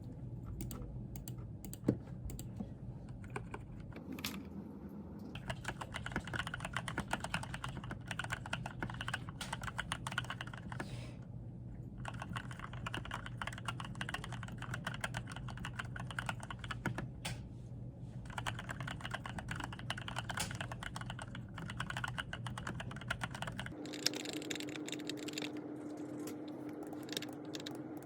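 Typing on a computer keyboard: rapid runs of key clicks with a couple of short pauses, over a steady low hum.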